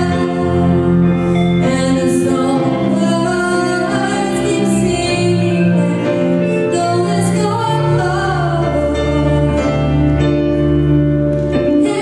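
A woman singing a slow song live into a microphone, accompanied by an electric guitar holding long low notes.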